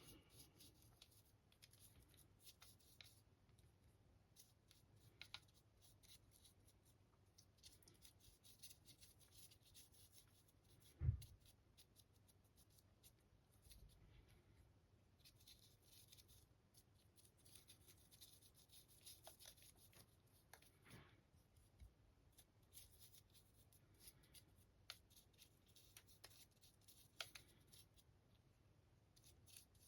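Faint scratchy strokes of a paintbrush scrubbing a wash over a 3D-printed model, coming in runs, with one dull knock about eleven seconds in.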